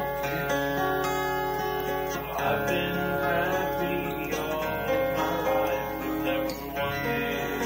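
Acoustic guitar playing an instrumental passage of a song with sustained notes and chord changes, over a steady low hum.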